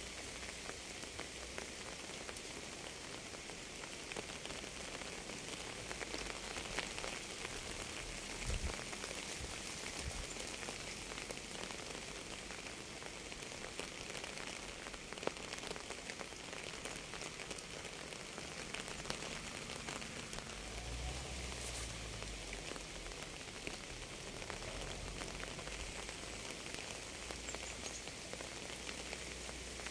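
Steady rain falling, an even hiss dotted with the ticks of single drops striking a surface. There are brief low rumbles about a third of the way in and again about two-thirds through.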